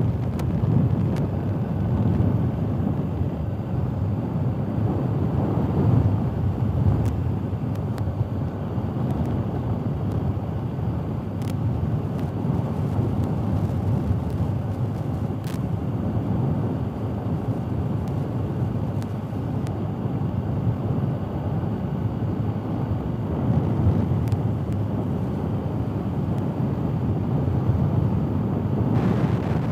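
BMW R 1250 GS Adventure motorcycle riding along a gravel road, heard as steady wind and road rumble. A few faint clicks come through along the way.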